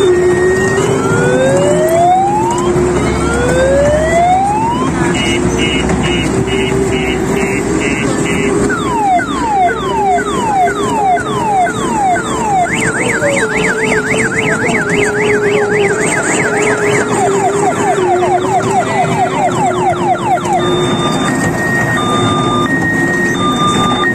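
Electronic siren sound effects cycling through patterns: rising wails, then a run of quick beeps, falling sweeps, a fast warble, more falling sweeps, and alternating beeps near the end, over a steady hum.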